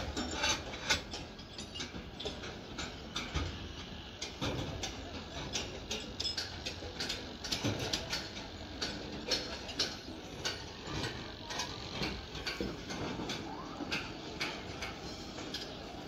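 Construction-site clatter: many irregular clicks and knocks, a few a second, over a steady background hiss.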